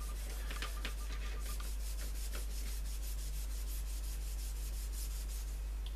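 Dry steel wool pad rubbing quickly back and forth along a thin gold-coloured metal trim strip, a steady scratchy swishing of several strokes a second, polishing the tarnish off the metal.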